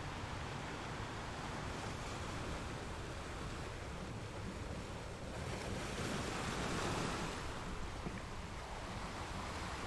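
Brown floodwater rushing and churning as it pours into an underground car park entrance: a steady, even rush of water that swells for a couple of seconds about six seconds in.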